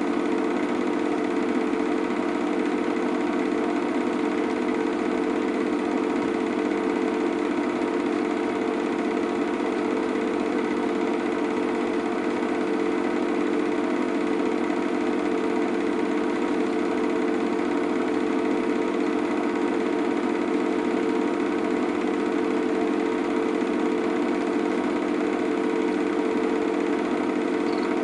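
A small machine running steadily, an unchanging mechanical whirr with a constant hum.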